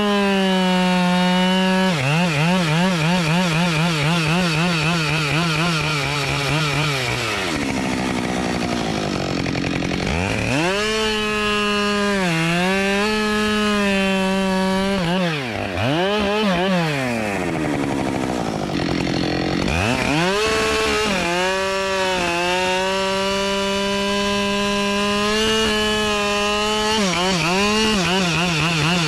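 Husqvarna 572 XP 71 cc two-stroke chainsaw at high revs bucking a log, its pitch wavering as the chain bites the wood. It eases off to a lower speed twice, about 8 seconds in and about 16 seconds in, then revs back up into the cut.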